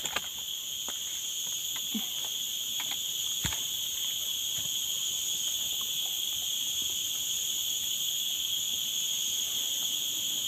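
Steady chorus of forest insects: an even, high-pitched buzzing drone that never pauses. A few faint clicks and one soft knock about three and a half seconds in.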